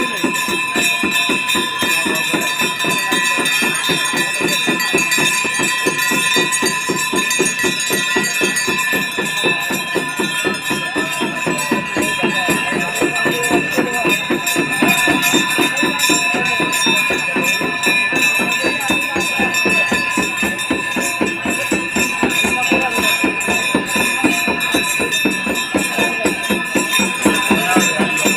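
Temple bells ringing steadily, with sustained ringing tones over a fast, even rhythm of metallic strokes, amid devotional music.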